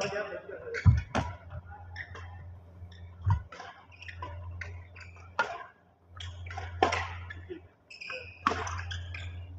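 Badminton rackets striking a shuttlecock in a rally: single sharp hits every one to two seconds, the loudest about a second in, over a steady low hum in the hall.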